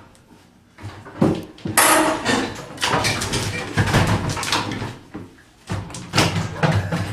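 A bathroom vanity top being wrenched and pried loose from its cabinet: a knock about a second in, then a sharp crack and a run of thumps and scraping, with a second burst of it near the end.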